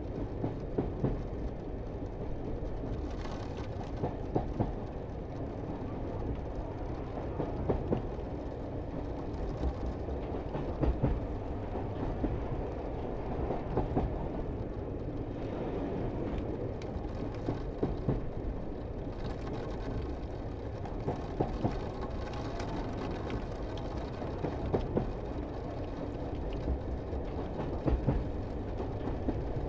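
Pikes Peak cog railway train running, a steady rumble with sharp clacks and knocks every second or few.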